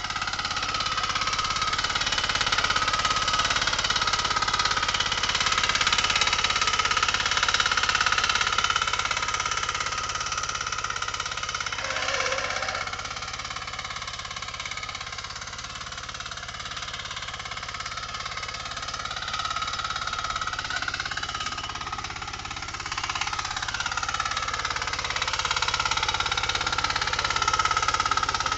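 KisanKraft power tiller engine running under load as its rotary tines churn dry soil, a steady fast chugging with a noisy clatter on top. It grows louder near the end as the machine comes closer.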